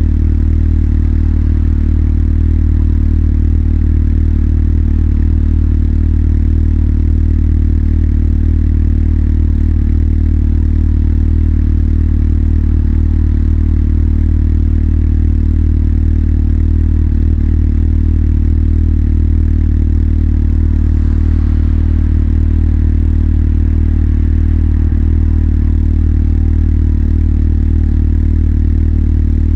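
Motorcycle engine idling steadily, its low, even note holding the same pitch throughout with no revs.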